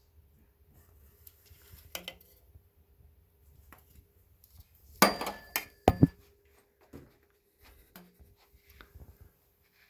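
Hard objects being handled: scattered clicks and knocks, with a loud clatter about five to six seconds in.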